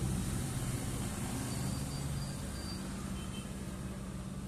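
A motor running steadily, a low, even hum.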